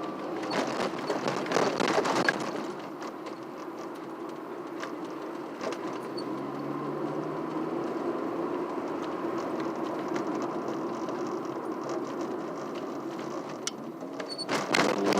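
Ford Escort ZX2 on the move, heard from inside the cabin: steady road and drivetrain noise with a wavering hum, and louder rattly stretches about two seconds in and again near the end.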